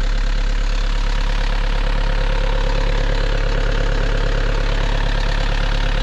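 Sailing yacht's inboard diesel engine running steadily, heard close up in the engine room. It runs smooth again after diesel bug had fouled the fuel system.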